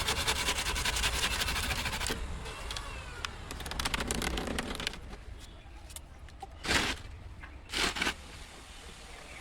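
Workshop sounds from building a wooden frame: a fast run of clicks and scraping for about two seconds, then softer scraping, then two sharp knocks about a second apart.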